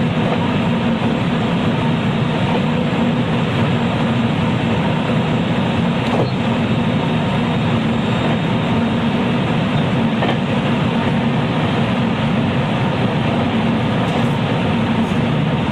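JR West 223 series electric train running steadily at speed between stations, heard from inside the motor car: a constant rumble of wheels on rail and running gear, with a couple of faint clicks partway through.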